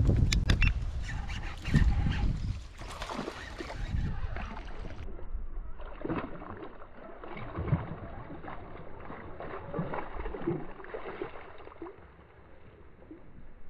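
Water splashing as a peacock bass strikes a surface lure and thrashes at the surface while hooked.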